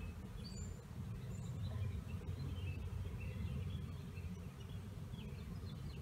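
Steady low outdoor background noise with a few faint, short bird chirps, and a single light click about two seconds in.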